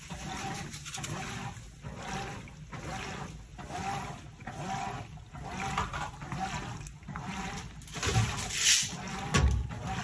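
Top-loading washing machine agitating a sudsy load: water sloshing and swishing in a regular surge about once a second as the centre agitator turns back and forth. Near the end comes a louder splash and a brief thud.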